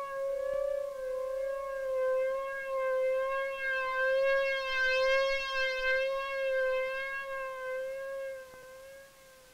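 Documentary score: a single long held note with a rich, slightly wavering tone, dropping away near the end.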